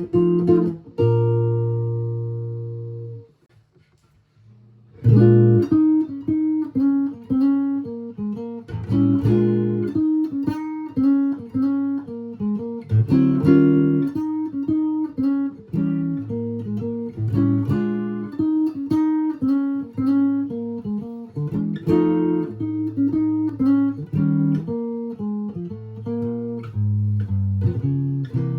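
1941 Gibson ES300 archtop guitar, fitted with a P90 pickup and D'Addario half-round strings, being played. A chord is left to ring and fade, there is a pause of about two seconds, and then a tune of single notes and chords is played at a steady pace.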